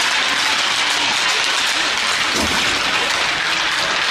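Spectators applauding: a steady patter of clapping.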